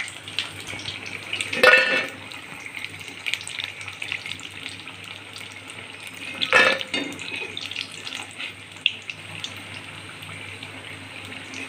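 Gram-flour-battered kakrol (spiny gourd) fritters deep-frying in hot oil in an iron kadai: a steady crackling sizzle. A metal spatula clanks against the pan twice, a couple of seconds in and again a little past six seconds, as the fried fritters are lifted out.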